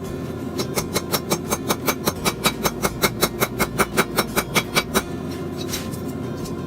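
Rapid, evenly spaced hammer blows on a hot railroad spike on the anvil, about five a second for roughly four seconds. A couple of single blows follow near the end.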